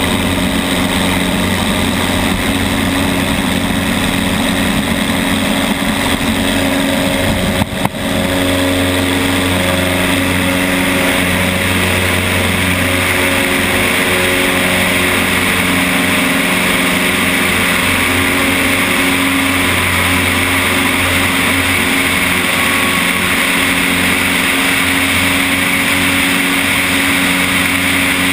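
A single-engine light aircraft's piston engine and propeller at takeoff power through the takeoff roll and climb-out: a steady drone under heavy wind rush on the wing-mounted camera. The rush grows stronger from about halfway through.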